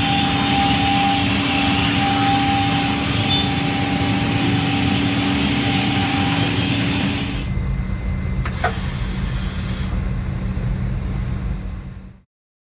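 Holz-Her 6210 Cut 85 CNC panel saw running: a loud, steady machine noise with a steady hum through it. About seven and a half seconds in, the higher hiss drops away, leaving a low rumble, and then the sound cuts off suddenly near the end.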